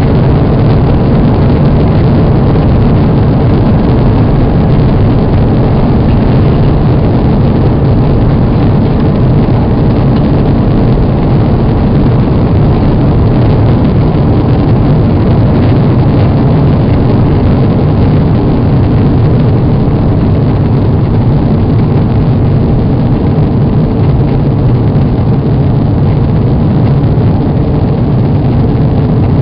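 Loud, steady rumble of an Airbus A340-300's four CFM56 jet engines at takeoff thrust, heard from inside the passenger cabin during the takeoff roll and lift-off.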